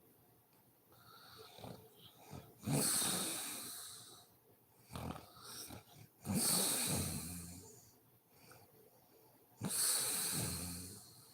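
A sleeping woman snoring: three loud snoring breaths about three and a half seconds apart, each starting abruptly and fading away, with quieter wheezy breathing between them.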